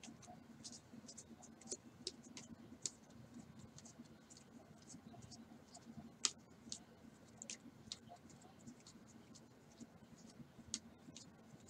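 Stack of baseball trading cards being flipped through by hand: faint, irregular clicks and scratches of card edges sliding off one another, with one sharper click about six seconds in, over a faint steady hum.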